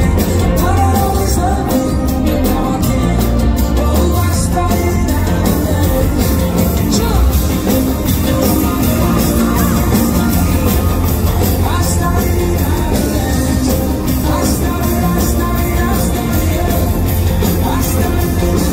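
Live pop-rock band playing loud, heard from within the audience through a phone microphone: heavy bass and drums, with singing over it.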